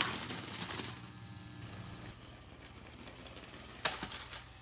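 Motorized Lego train running on plastic track: a clatter of plastic wheels and carriages dies away in the first second, leaving a light motor whir. A sharp click near the end.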